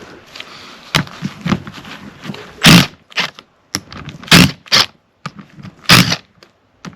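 A string of sharp knocks and clanks from tools and metal parts being handled while a power steering pump is taken apart. About eight short hits come at uneven intervals, the loudest three about a second and a half apart.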